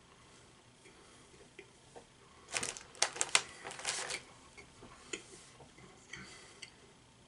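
Crinkly plastic cookie packaging being handled: a quick cluster of sharp crackles and clicks lasting about a second and a half, then a few scattered lighter clicks.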